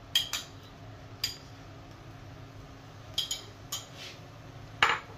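A ceramic bowl clinking against the rim of a nonstick pan, a few sharp taps at a time, as chopped onions are knocked out of it, with one louder knock near the end.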